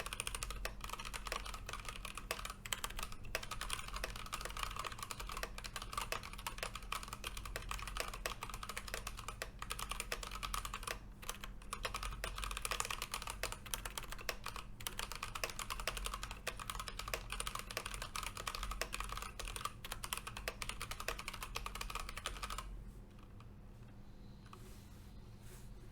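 Keychron K8 mechanical keyboard being typed on rapidly in continuous clattering keystrokes. The typing stops about 23 seconds in, leaving only a few isolated key clicks over a faint steady hum.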